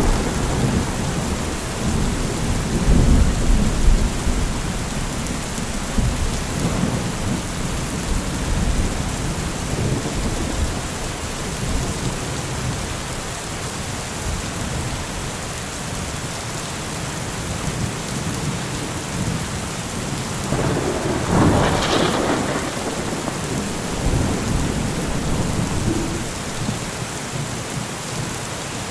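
Steady rain with rolling thunder: low rumbling in the first few seconds that dies away, then a louder clap of thunder about three quarters of the way through.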